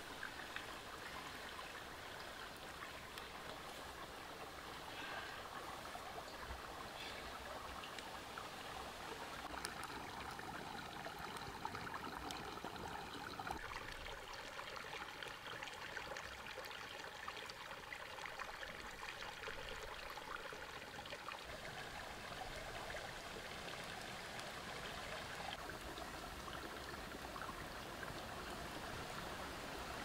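Steady sound of running water, trickling like a small stream.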